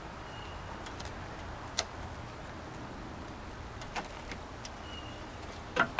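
Rubber window run channel being pressed and snapped into a pickup's door frame by hand. It gives a few sharp clicks about two seconds apart, the loudest near the end, over a steady low background hum.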